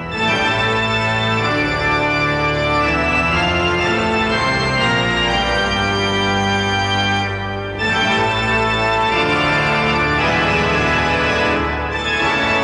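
Organ music playing long held chords that change every second or two, with brief breaks between phrases about seven and a half seconds in and near the end.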